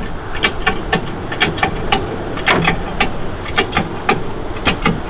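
Ratchet strap being cranked tight, its pawl clicking in quick, uneven runs as it pulls crash-bent car bodywork back out.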